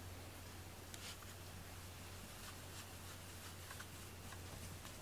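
Faint rustling of a hand stroking a cat's fur, over a steady low hum.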